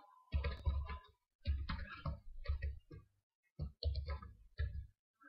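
Computer keyboard being typed on: about a dozen short, uneven keystrokes, with a brief pause a little past halfway.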